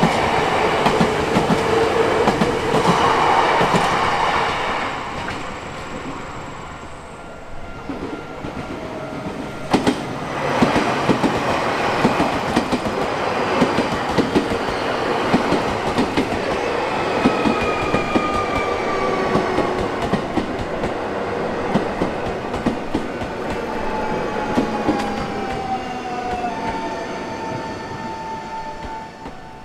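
Nankai Koya Line electric train passing close by, its wheels clacking over the rail joints. The running sound eases about six seconds in and picks up again about ten seconds in, and in the second half whining tones fall slowly in pitch.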